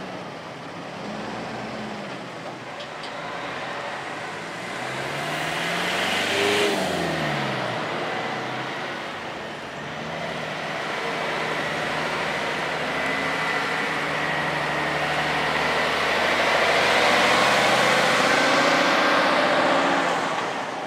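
Road vehicles passing close by. About six seconds in, one passes with its engine pitch dropping as it goes, and near the end tyre and engine noise swells as another vehicle approaches.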